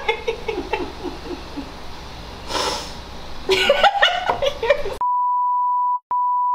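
A woman giggling and laughing, then, about five seconds in, a steady single-pitch censor bleep that blots out a swear word, lasting about a second and a half with a brief break near its end.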